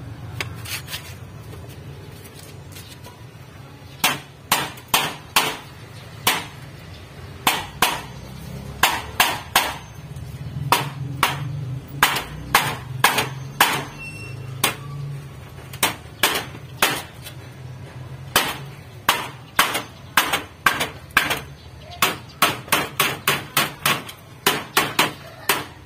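Hammer blows, sharp strikes with a short ring, coming in irregular runs of a few a second, starting about four seconds in.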